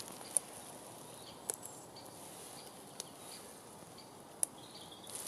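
Faint woodland background with a few short, faint bird chirps and four small sharp clicks spread through it.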